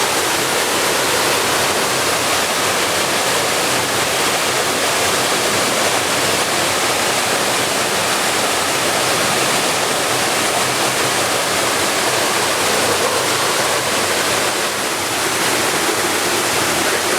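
Steady, loud rush of a waterfall's falling water.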